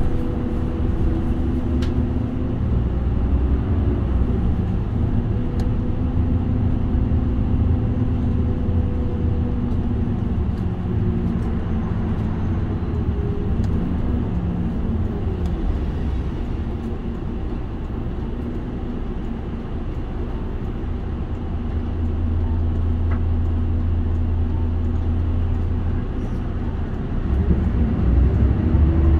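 Mitsubishi Fuso Aerostar city bus running along the road, heard from the front seats inside the cabin: a steady diesel engine note with road rumble. The engine's pitch rises near the end.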